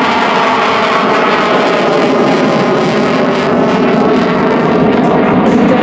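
CF-18 Hornet fighter jet's twin General Electric F404 engines in full afterburner during a fly-by: a loud, steady jet noise, with a sharp crackle coming in near the end.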